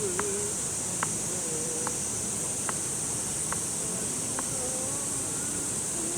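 Steady high-pitched drone of an insect chorus, with a few faint sharp clicks about once a second.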